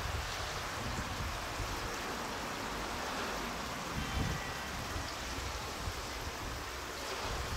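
Steady outdoor hiss with uneven low rumbles, like wind buffeting the microphone, and no distinct machine sound standing out.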